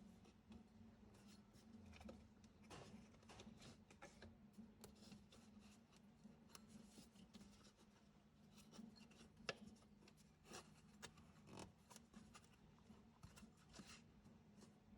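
Near silence with faint rubbing, scraping and light clicks as a rubber serpentine drive belt is worked by hand around the engine's pulleys. One sharper click comes about halfway through, over a faint steady hum.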